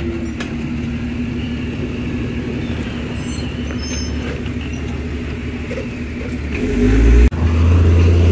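Motor vehicle engines running steadily at a road construction site. Near the end the sound grows much louder and deeper, with a brief break in it.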